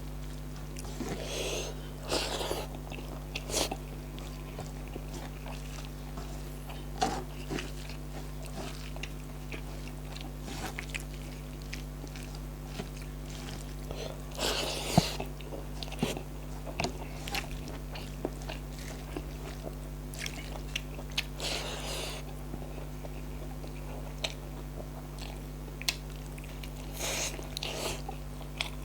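A person eating close to the microphone, chewing and biting with frequent small mouth clicks and a few louder spells of chewing about two, fifteen, twenty-one and twenty-seven seconds in, over a steady low electrical hum.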